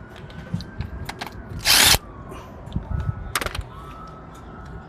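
Impact wrench running in one short burst of under half a second, then a second, shorter burst about a second and a half later, undoing the 12 mm bolts that hold a Nissan engine's oil cooler. Light clicks and knocks of tools come between the bursts.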